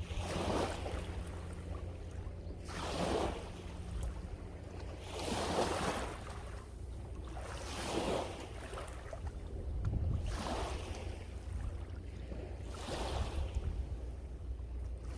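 Sea waves washing in and out on a beach, one swell of surf about every two and a half seconds, over a steady low rumble of wind on the microphone.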